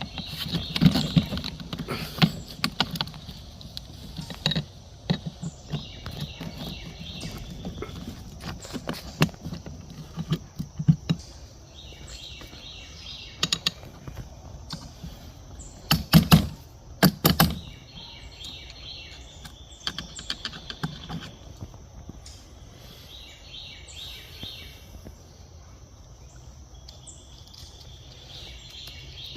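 Scattered clicks and knocks of hand work prising an old tire off a garden cart wheel, with two louder knocks about halfway through. Birds chirp now and then in the background.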